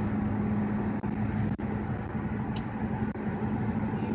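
Car driving: steady engine and road noise with a low hum.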